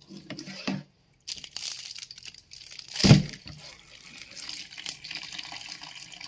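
Tap water running steadily into a sink, with one loud knock about three seconds in.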